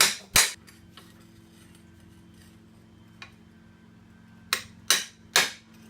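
Hammer blows striking metal: a 1956 GMC door hinge's stuck hinge pin being driven at in a vise. Two sharp strikes come right at the start, then three in quick succession near the end, with a low steady hum underneath.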